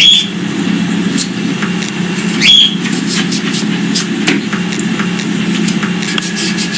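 Knife cutting cucumber on a cutting board: scattered short taps and clicks over a steady low hum, with two short rising squeaks, one at the start and one about two and a half seconds in.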